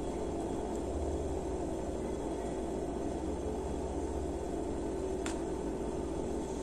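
Steady low background hum, even in level throughout, with a single faint click about five seconds in.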